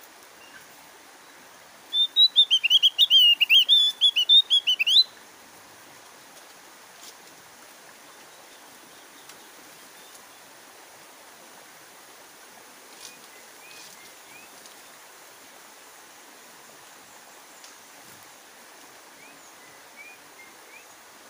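Javan grey-throated white-eye (opior Jawa) singing a loud, rapid run of high chattering notes for about three seconds, then giving only a few faint short chirps over a steady hiss.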